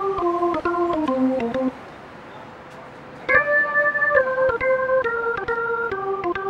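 Background music on an organ-like keyboard: a phrase of short notes stepping downward, which breaks off about two seconds in and starts again higher after a pause of over a second.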